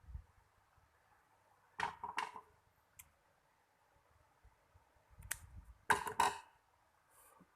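Hands handling fishing line and tackle close to the microphone: a few short rustles and clicks about two seconds in, and a louder cluster of them with a dull bump around five to six seconds.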